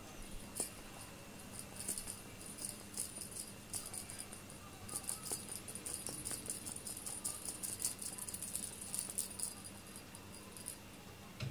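A small bell jingling in quick, light shakes, busiest from about five to nine and a half seconds in.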